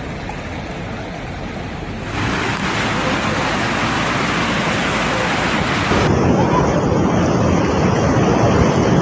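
Steady rushing noise of heavy rain and floodwater with wind buffeting the microphone. It grows louder about two seconds in and changes abruptly about six seconds in.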